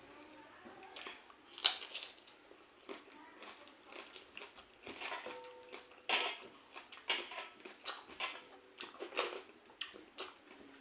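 Eating sounds from a meal of pakhala (watered rice) with fried small fish, eaten by hand: a string of short smacks, slurps and crunches with light clinks of the dishes.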